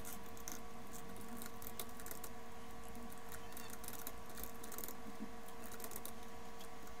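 Computer keyboard typing: a steady run of light key clicks as a line of text is typed. Underneath is a faint steady hum.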